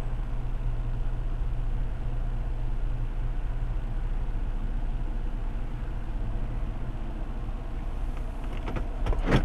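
Car engine idling steadily, a constant low hum heard from inside the cabin with the side window open. Near the end, a brief cluster of sharp clicks.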